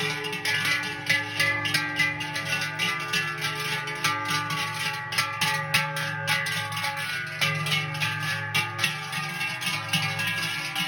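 Music on plucked or struck strings, with a steady rhythm of notes over sustained tones.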